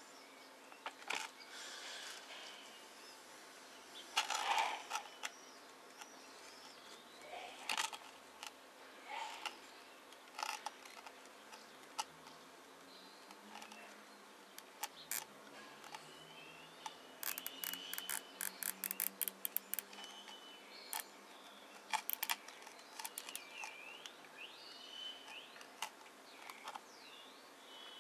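Plastic cable tie being threaded and pulled tight, its ratchet giving a quick run of clicks a little past halfway through, with scattered clicks and rustles of hands handling the roots and the figurine.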